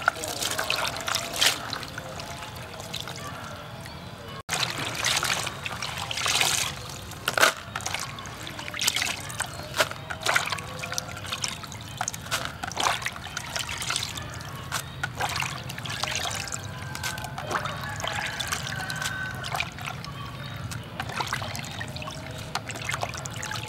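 Crickets being rinsed and drained: water trickling and dripping, with many small irregular clicks and splashes. A brief break about four and a half seconds in.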